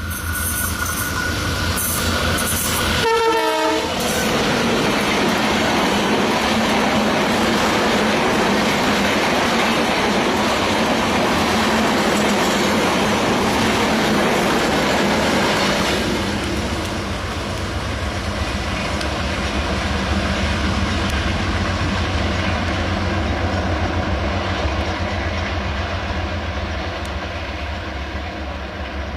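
Train running on the rails, with a short horn sound about three seconds in. A loud rushing rumble follows and eases to a quieter, steady run about halfway through.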